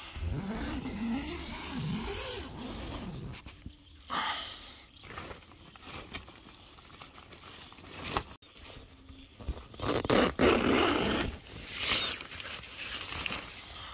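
Tent door zippers being pulled open by hand: a short zip about four seconds in, then longer, louder zipping runs near the end as the outer fly is opened. In the first few seconds there is a low, wavering vocal sound.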